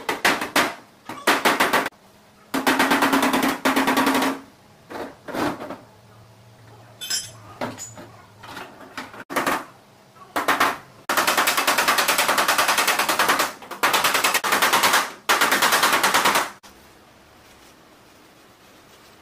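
Rapid hammering on the sheet-metal trunk lid of a 2013–2014 Nissan Sentra during dent repair: long runs of quick metal-on-metal blows, with a few single strikes and short runs between. The longest run, near the end, stops abruptly.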